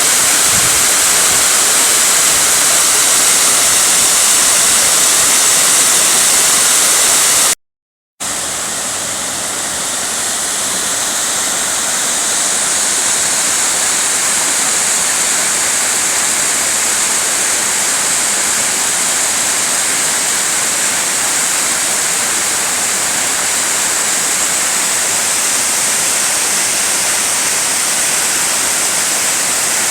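A waterfall on a mountain stream, making a steady, loud rush of falling water. About a quarter of the way in, the sound drops out for a moment. It comes back slightly quieter and slowly swells.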